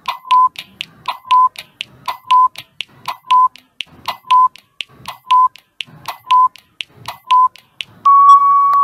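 Quiz countdown timer sound effect: rapid ticking clicks with a short beep once every second, then a long steady beep about eight seconds in as the timer runs out.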